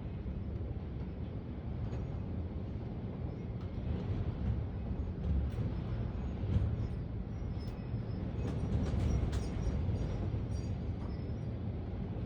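Strong thunderstorm wind gusting, a heavy low rumble that swells and eases in gusts, loudest around the middle, with scattered faint ticks.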